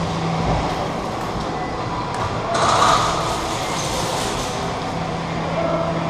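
Airsoft guns firing on full auto, with a louder, longer burst starting about halfway through.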